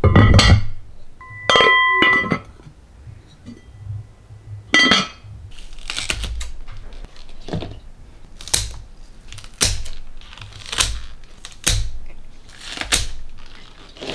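Clinks of a white casserole pot and its lid being handled, with a brief ringing tone about a second in. Then a series of crisp snips about once a second as scissors cut green onion stalks.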